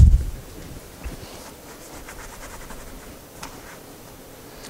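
A kitchen faucet turned off with a short low thump, the running water stopping at once. Faint rustling and a few soft ticks follow.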